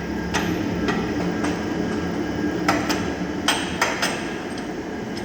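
A hammer striking metal: about eight sharp blows spaced irregularly, with a steady low hum beneath. The blows come as a new steering tie-rod end is being fitted.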